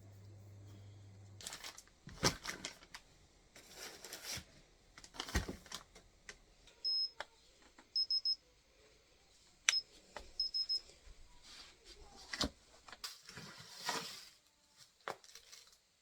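Household handling sounds, several sharp knocks and clatter, together with short high electronic beeps: one, then three, then one, then three. A low hum cuts off about a second and a half in.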